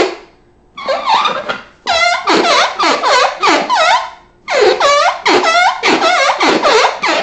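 Loud squealing scrape of an object dragged in quick strokes across the floor, about three or four squeals a second, in three runs with short pauses between them.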